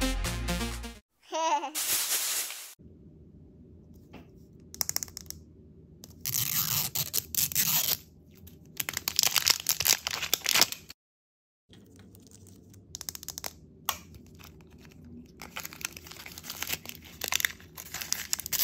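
Foil and plastic wrappers of L.O.L. Surprise toy packaging crinkling and tearing as they are unwrapped by hand, in repeated crackly bursts with sharp clicks.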